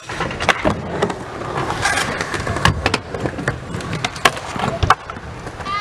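Skateboard wheels rolling on concrete, with a series of sharp clacks of boards popping and landing; the loudest come nearly three seconds in and just over four seconds in.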